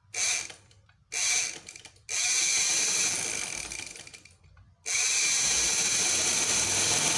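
Sewing machine's electric motor, fitted with new carbon brushes, driving the machine: two short bursts, then a longer run that winds down, then a steady run with a high whine from about five seconds in. It runs properly again after the brush change, which cured the sparking and weak speed.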